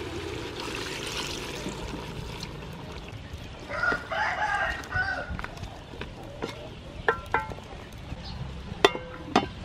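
A rooster crows once about four seconds in, and there are a few short clucks or clicks near the end. Under them runs the low sizzle of chicken curry in an aluminium pot being stirred with a wooden spoon.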